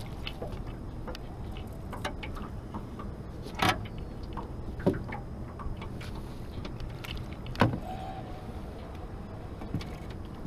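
A few sharp knocks and clicks against the jon boat, three of them louder and spread a second or more apart, over a steady low rumble.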